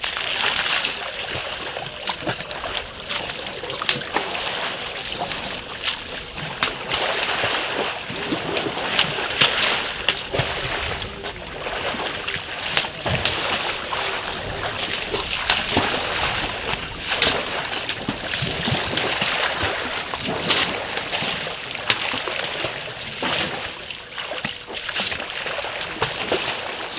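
African elephants splashing and wallowing in a shallow waterhole: continuous sloshing water broken by frequent sharp splashes.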